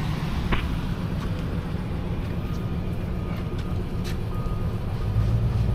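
Vehicle engine running with a steady low rumble. From about two and a half seconds in, a vehicle's reversing alarm beeps repeatedly.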